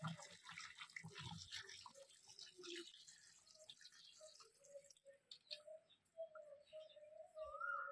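Water poured from a steel vessel into a kadai of spiced turkey pieces, splashing faintly for the first few seconds. Later a faint wavering tone comes in and rises in pitch near the end.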